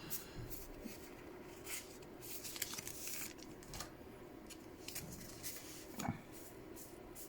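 Pokémon trading cards and booster-pack wrappers being handled: faint scattered rustles and light clicks, with a brief longer rustle about three seconds in and a soft knock about six seconds in.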